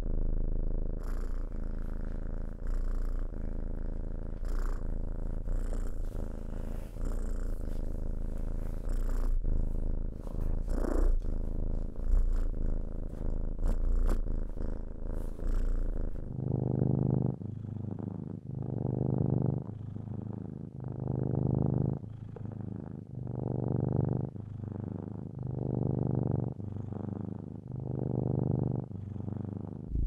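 Domestic cat purring close up, steady at first with small clicks. About halfway through the sound changes to a different recording in which the purr swells and fades about every second and a quarter, following the cat's breaths in and out.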